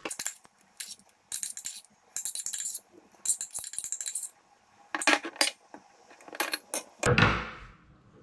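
A metal spoon scrapes a small stainless steel pot in several short strokes, emptying out the last of a thick curry. A few light metallic clinks follow, then a dull thud near the end as the dish is set down.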